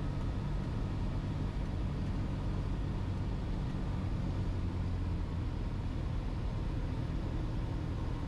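Cessna 172's piston engine and propeller droning steadily in the cabin on final approach, a low hum with a hiss of airflow over it.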